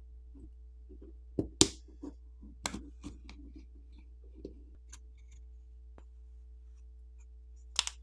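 Plastic catches of the OnePlus Nord N30 5G's back housing snapping loose as a plastic pry tool is worked along the edge between housing and frame: scattered sharp clicks, the loudest about one and a half seconds in and another pair near the end, over a faint steady hum.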